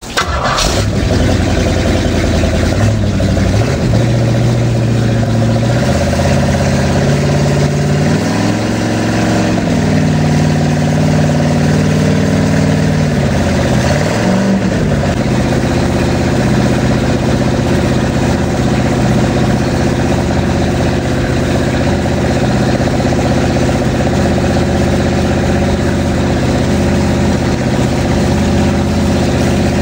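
Freshly rebuilt marine Oldsmobile 455 V8 running during its camshaft break-in, held at a fast idle. Its speed rises and falls several times in the first fifteen seconds or so, then holds steady.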